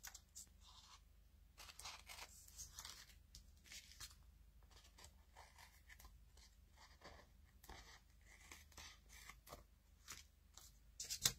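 Faint rustling and crinkling of paper strips and cardstock being handled and shifted, in short irregular bits, with a louder crackle of paper near the end.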